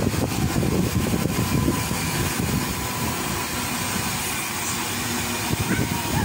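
Steady rushing rumble of a spinning balloon-basket amusement ride, heard from inside the moving basket.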